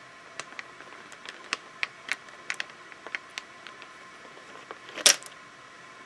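Light metallic clicks and taps from a bicycle seatpost's saddle clamp being turned by hand and the saddle rails worked free of it, with one louder clack about five seconds in.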